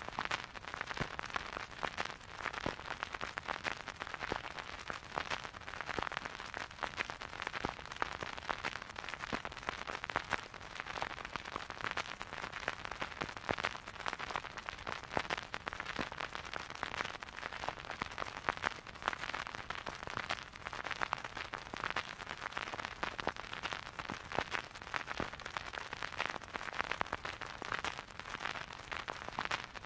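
Vinyl record surface noise under a turntable stylus: a dense, steady crackle of small clicks and pops over a soft hiss, with no music.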